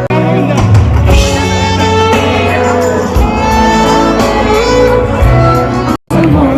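Live band music on stage, loud and full, with gliding melodic notes over a steady low bass. The sound cuts out completely for a split second near the end.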